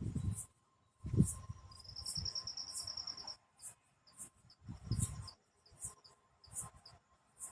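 Crickets chirping: short high chirps repeating about once or twice a second, with a steady high trill lasting about a second and a half near the start. Low rumbling noise comes and goes underneath.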